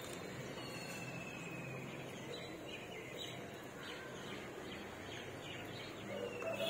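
Outdoor background hum with a bird calling: a long falling whistle, then a run of short chirps, and another falling whistle near the end.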